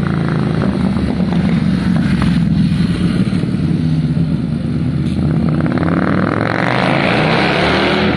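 Motorcycle riding past. Its engine runs loud and steady as it approaches, goes by and pulls away.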